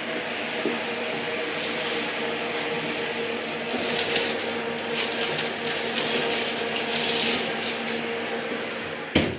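Steady hum from the hot oven, with the metal wire rack scraping and the foil-wrapped dish crinkling as it is slid onto the rack. A sharp knock comes near the end.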